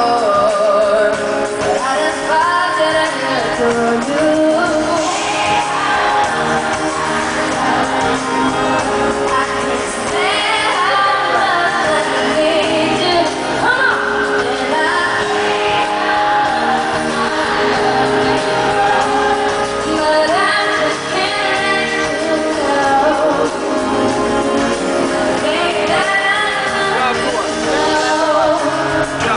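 Live pop concert: a woman sings lead over her band, heard from among the crowd in a large arena.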